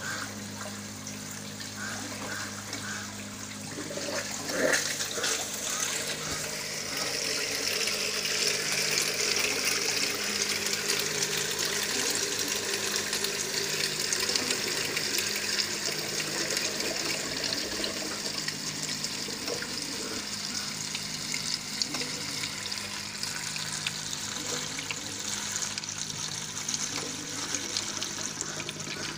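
Water trickling from an aquaponics pipe, then splashing steadily into the fish tank, getting louder about four to six seconds in, over a steady low hum.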